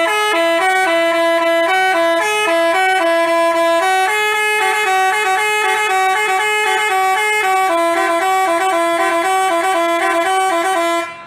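Telolet bus horn, a multi-tone Basuri horn, playing a fast melody of quickly changing notes, then cutting off sharply near the end.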